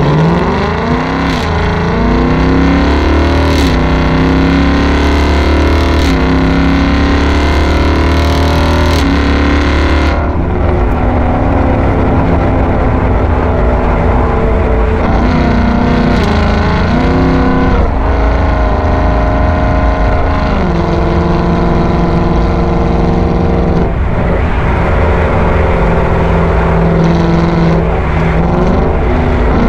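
Ford Mustang GT's 5.0-litre V8 running through a Borla ATAK cat-back exhaust while driving. The engine note climbs with the revs and drops back at several gear changes between stretches of steadier cruising.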